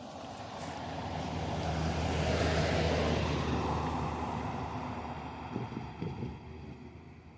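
A road vehicle drives past, its engine and tyre noise swelling to a peak about three seconds in and then fading, with two short knocks near the end.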